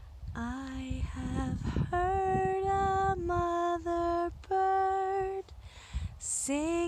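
A woman singing alone, without accompaniment: a slow, gentle melody in short phrases of long held notes, with a brief pause near the end.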